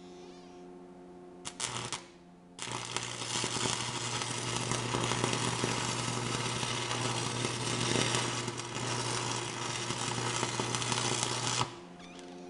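Electric arc welder laying a short stitch weld on a cracked cast-iron axle housing: a brief arc strike about a second and a half in, then a steady crackling arc for about nine seconds that cuts off suddenly near the end. The welder's mains hum is heard before the arc starts.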